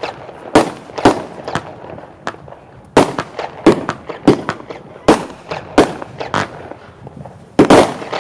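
Geisha Red Club 25 mm firework battery firing shot after shot, each red comet ending in a loud break. About ten sharp bangs, roughly one every half second to second, with the loudest, doubled bang near the end.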